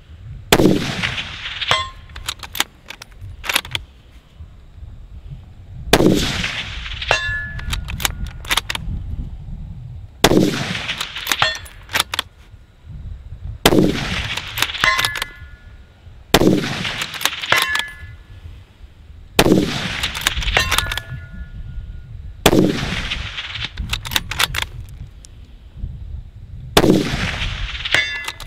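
A .308 Ruger Precision Rifle with a muzzle brake fired eight times, about one shot every three to five seconds. After each shot come quick metallic clicks as the bolt is worked to feed the next round from the drum magazine, and a short metallic ring follows several of the shots.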